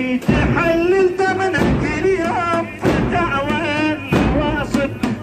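A lamentation chant (latmiyya) sung by a reciter in long, wavering phrases, over low, heavy thumps.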